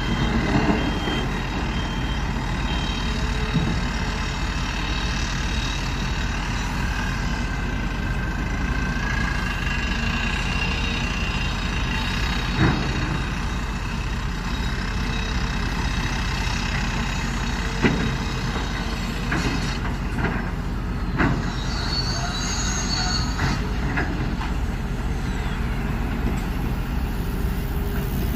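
Excavator's engine and hydraulics running steadily as the machine works, moving a large rock. A few sharp knocks come through, and about two-thirds of the way in there is a short high-pitched squeal.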